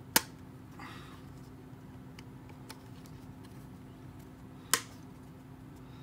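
Plastic parts of a Barbie toy beach lounger clicking together as they are clipped into place. There are two sharp snaps, one just after the start and the other near the end, with faint ticks and rustling of handling between them.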